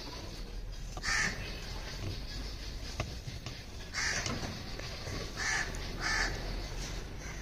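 A crow cawing: four short caws, about a second in, at about four seconds, and twice more near the end.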